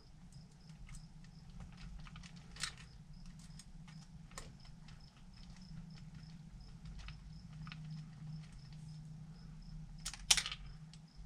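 Small hard clicks, taps and rattles of screws, an Allen wrench and plastic wheel parts being handled while working on an RC crawler's wheel. A louder clack comes about ten seconds in, over a faint steady low hum.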